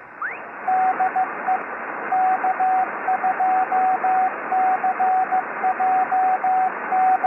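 Morse code (CW) tone keyed in short and long beeps, dots and dashes, over the steady hiss of radio static heard through a narrow receiver passband. A brief rising chirp sounds at the very start.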